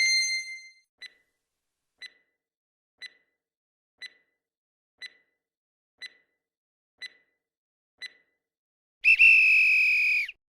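Quiz countdown timer sound effect: a chime rings out and fades, then eight short ticks one second apart, then a loud electronic time's-up beep lasting just over a second.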